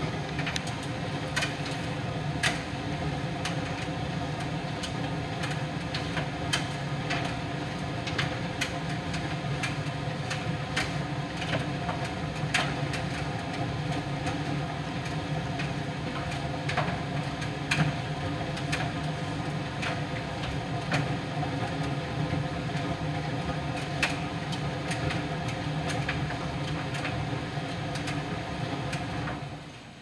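Miele PT 5136 tumble dryer running a drying cycle: a steady motor-and-drum hum with irregular light clicks. The level drops suddenly just before the end.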